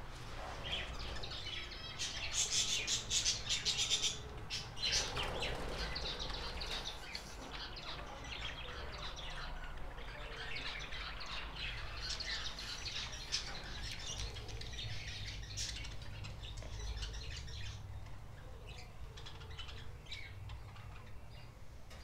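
Many caged budgerigars and finches chirping and chattering together, a dense jumble of short high calls, busiest about two to four seconds in.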